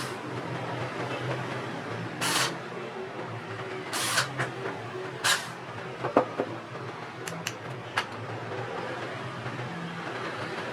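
Hand work on small parts: three short scraping or rustling sounds, then a handful of sharp little clicks, over a steady low hum.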